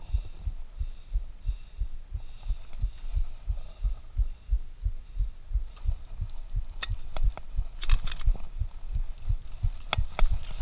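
Irregular low thumping and rumble from a camera mounted on a mountain bike riding a rough trail, with a few sharp clicks about seven, eight and ten seconds in.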